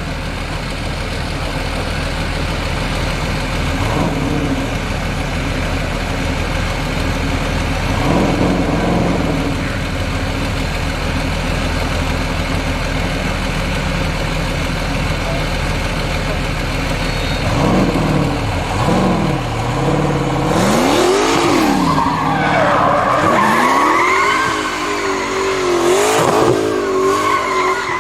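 A performance car's engine runs with a steady rumble and a couple of short revs. Then it revs hard in repeated rising and falling sweeps, and near the end tyres squeal as the car slides.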